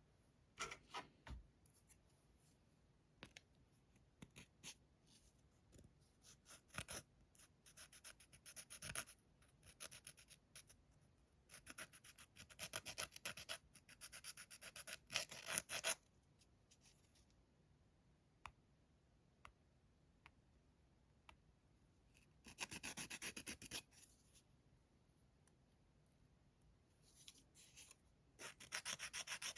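Faint scratchy rubbing of a hand file over fingernails in quick back-and-forth strokes, coming in short bursts with pauses and a few light ticks between; no nail drill running.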